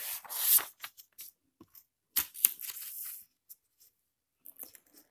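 Paper rustling as a notebook page is turned over. A second, shorter rustle comes about two seconds in as the page is handled, with a few light taps.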